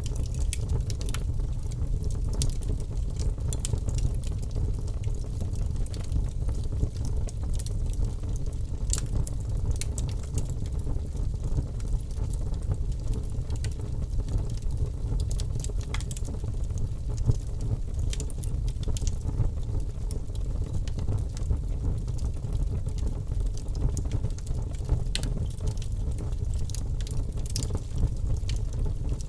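Wood fire crackling in a fireplace: a steady low rumble of the flames with frequent, irregular sharp pops and snaps.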